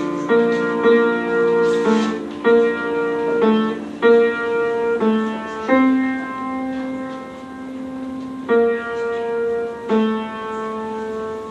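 Background piano music: slow, held chords, a new chord struck every second or two.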